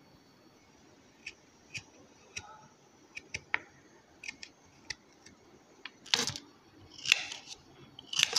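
Kitchen knife peeling and cutting a piece of ginger on a stainless steel plate. Light scattered clicks of the blade first, then three louder knocks of the knife against the plate in the last couple of seconds.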